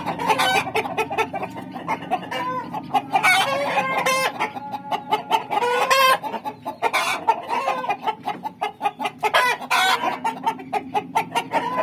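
Domestic chickens, a rooster with hens, clucking continually in short pitched calls, with several louder, higher calls breaking in every few seconds.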